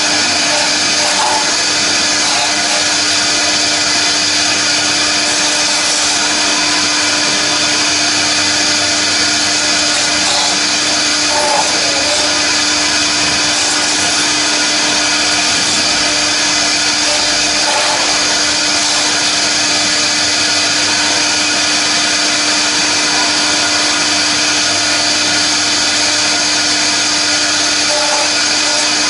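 A 1325 CNC router milling a foam block on its rotary axis: the spindle runs at a steady high whine over a constant hiss of cutting, with no change in pitch or level.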